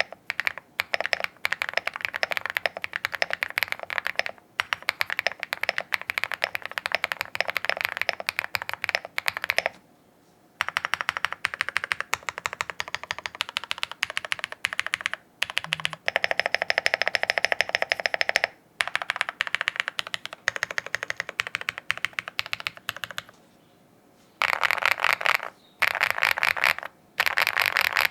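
Typing sound test on a Siren VK87 custom mechanical keyboard: fast, continuous keystrokes with a deep "thock", stopping briefly twice and starting up again in quick runs near the end.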